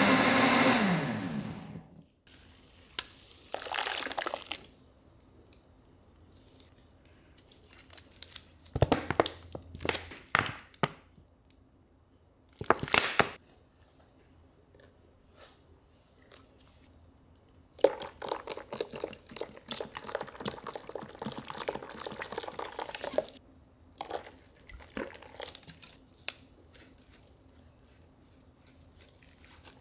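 Kitchen food-preparation sounds: a loud sound that fades out in the first two seconds, then scattered clicks, crinkling and liquid sounds, with a longer run of busy handling noise in the second half.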